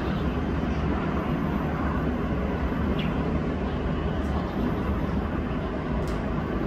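Steady low rumble of distant vehicles, even in level with no single pass standing out.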